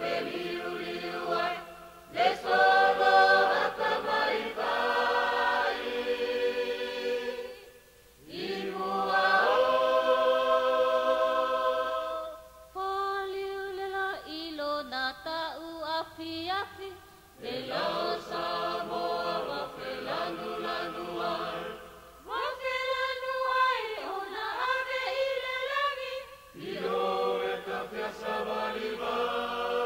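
A group of voices singing unaccompanied in a Polynesian revue, in sung phrases of a few seconds with short breaks between them, played back from a cassette tape recording.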